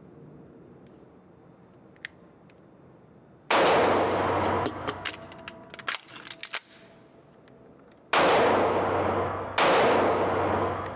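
Taurus G2c 9mm pistol firing: one shot a little over three seconds in, then two more about a second and a half apart near the end, each ringing out after it, with smaller clicks and pings between the shots.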